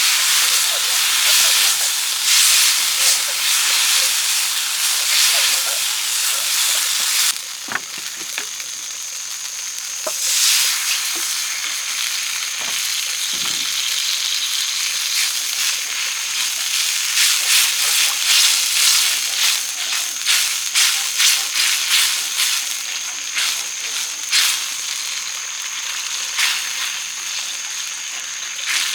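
Fish frying in a pan over a campfire, sizzling with many small crackles. The sizzle changes abruptly about seven seconds in, and a thin steady high tone then runs above it.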